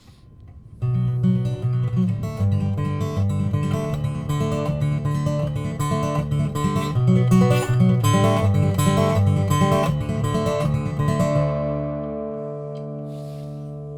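Acoustic guitar playing a song's intro in strummed chords, starting about a second in. Near the end a last chord is left to ring and fades.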